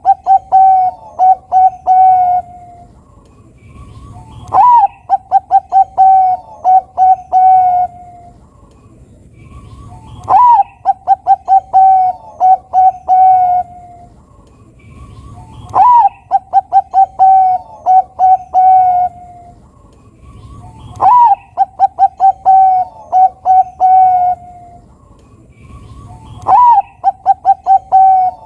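A Bangkok-type perkutut (zebra dove) singing its cooing song, repeated about every five and a half seconds. Each song is a clear opening note, then a quick string of short coos, then a few longer, lower drawn-out coos.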